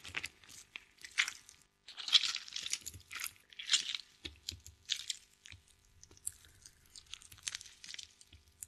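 Raw chicken pieces squelching wetly as they are worked in a bowl, in irregular bursts about once a second.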